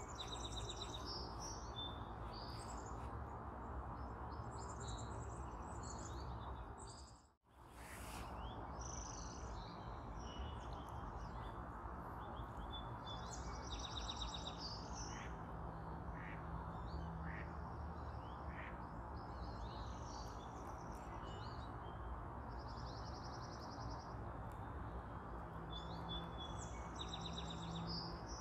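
Birds chirping and trilling again and again over a steady outdoor background hiss. The sound cuts out completely for a moment about seven seconds in.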